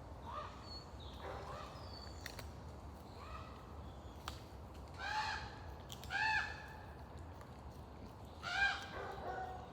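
A puppy whining in short, high yelps, each rising and falling in pitch; three louder yelps come about five, six and eight and a half seconds in, with fainter ones between.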